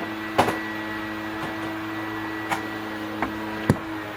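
Steady machine hum with four sharp clicks and knocks, the loudest just before the end, as the air conditioner's power plug is handled and pulled out.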